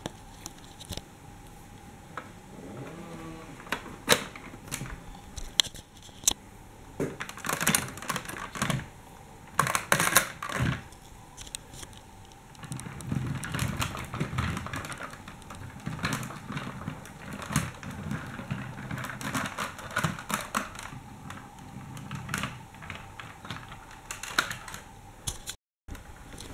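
Irregular clicks and plastic clatter of a plastic toy tram being handled and rolled over the floor, thickest for a few seconds in the first half, with a low rumble under the clicks through the middle stretch.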